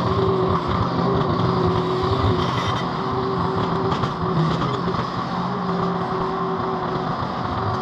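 Mini skid steer engine running steadily at working throttle, a constant hum with no sharp knocks.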